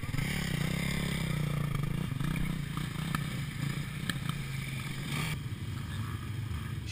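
250cc racing quad bike engine running steadily at low revs, with a couple of faint clicks about three and four seconds in.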